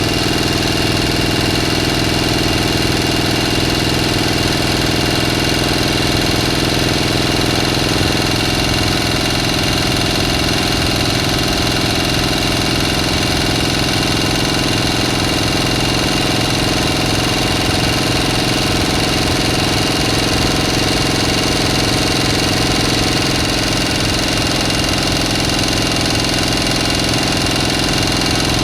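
A motor running steadily at a constant speed, an even mechanical hum with several fixed tones and no change in pitch or level.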